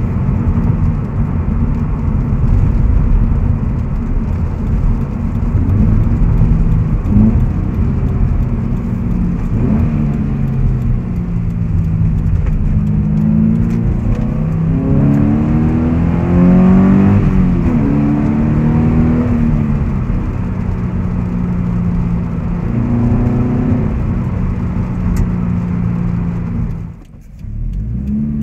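Subaru BRZ's 2.0-litre flat-four engine through a Corsa cat-back exhaust and intake, heard from the driver's seat while driving: the engine note climbs and falls several times as the revs change. A sudden brief drop in level near the end.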